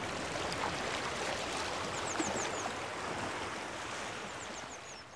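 Steady rushing noise of water, with two quick runs of high, falling chirps; the sound fades out near the end.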